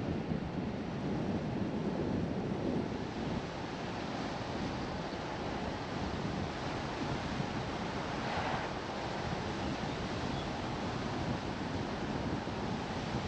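Car driving at speed: a steady rush of tyre and wind noise, with a brief brighter hiss about eight and a half seconds in.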